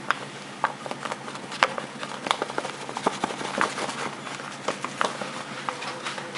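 Flour bag crinkling as flour is poured from it into a glass bowl, with irregular small crackles and taps, a few a second.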